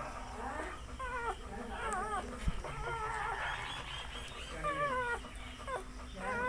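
Two-day-old Labrador puppies squeaking and whimpering: a series of short, high cries, each bending up and down in pitch.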